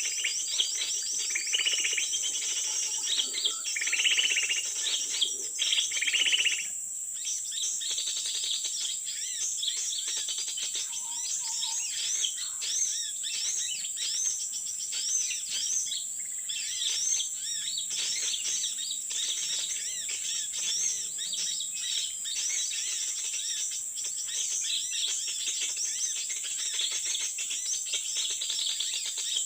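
Many small birds chirping and tweeting rapidly, the calls overlapping, over a steady high-pitched insect drone.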